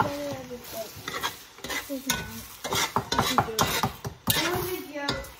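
Metal fork stirring and scraping eggs and bacon in a cast iron skillet, clicking repeatedly against the pan, over the sizzle of frying. The clicks come fastest in the middle.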